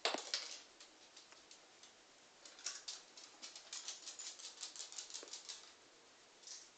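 A knock at the start, then a small dog's claws clicking rapidly on a laminate wooden floor as it trots, the clicking stopping after about three seconds.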